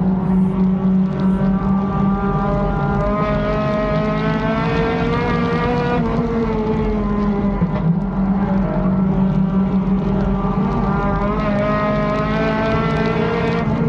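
Race car engine heard from inside the cockpit, running hard under load; its pitch climbs steadily and then drops as the driver lifts, once about six seconds in and again near the end.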